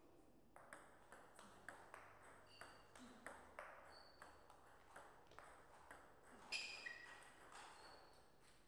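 Table tennis rally: the celluloid-type ball clicking off rubber bats and bouncing on the table in a quick, even run of about three hits a second. One hit about two-thirds of the way through is the loudest.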